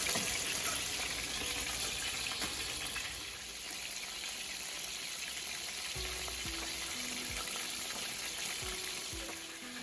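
Gray snapper pieces deep-frying in a large stainless-steel pot of hot oil, the oil sizzling and crackling steadily.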